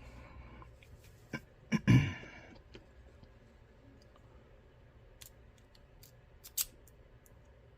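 Small hard clicks and clacks of a key and lock being handled on a bench. A loud clack comes about two seconds in, then scattered lighter clicks, with a sharper one near the end.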